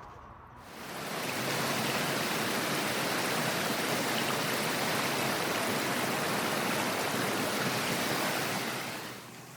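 Strong wind blowing in a steady rush of noise that swells in about a second in and dies away near the end.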